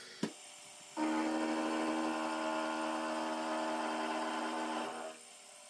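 A sharp click, then a milling machine's four-flute end mill cutting a billet aluminium block: a steady, ringing whine of several held tones that stops about five seconds in.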